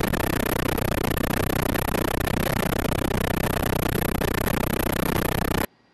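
Steady, loud rushing noise that cuts off suddenly near the end.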